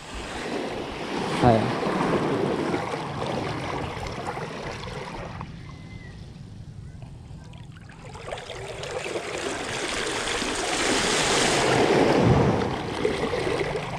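Small waves washing over shallow water at the shoreline. The water noise dips about five seconds in, then a wave builds and breaks around the hand, loudest near twelve seconds, and eases off.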